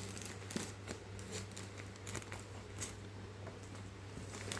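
Scissors snipping at plastic parcel packaging, a scattering of short clicks and rustles, over a steady low electrical hum.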